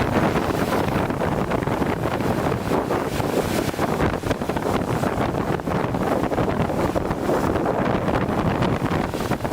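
Wind-driven lake waves surging and crashing against a concrete breakwater in a gale, mixed with heavy wind buffeting the microphone.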